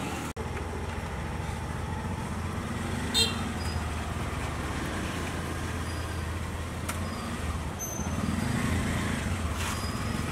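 Steady rumble of street traffic, a little louder in the last couple of seconds, with one sharp ringing clink about three seconds in.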